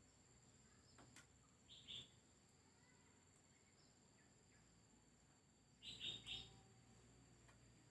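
Near silence with faint bird chirps: a short cluster about two seconds in and another about six seconds in.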